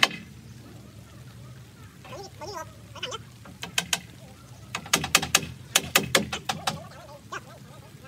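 Hammer driving nails into wooden roof battens: after a pause, several runs of quick sharp blows, about five a second, in the second half.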